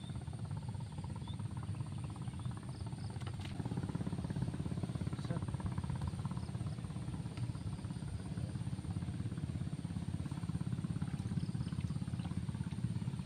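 A motor running steadily with a low rumble, a little louder from about three and a half seconds in.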